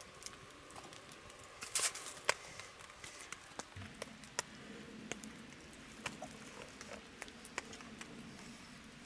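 Faint, scattered clicks and taps of spoons on metal camp bowls as food is served and eaten.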